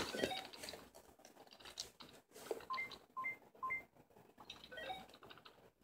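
Three short electronic beeps, about two a second, played faintly through a tablet's small speaker, with a few light scattered ticks around them.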